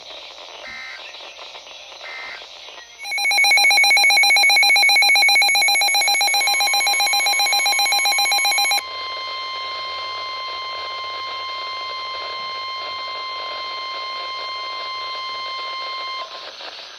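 NOAA Weather Radio alert sequence. Two short warbling digital data squawks of the SAME header are followed by a loud alarm beep pulsing very rapidly for about six seconds, then the steady 1050 Hz warning alarm tone for about seven seconds. Together they announce the tornado warning that comes next.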